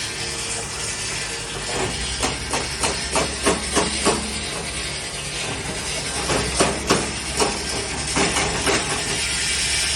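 Diamond wire stone-cutting saw at work: a steady low machine hum with a hiss, broken by irregular sharp knocks that come in clusters.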